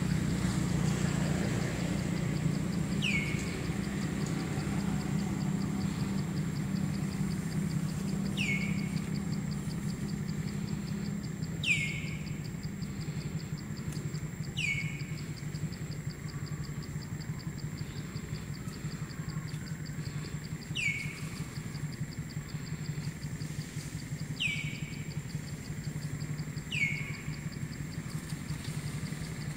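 Outdoor ambience: a short high call that slides quickly downward, repeated about seven times at irregular gaps, over a steady low hum like a distant engine and a faint steady high buzz.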